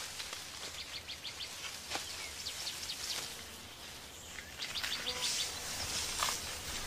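Birds chirping in about four quick runs of short, high notes over faint forest background.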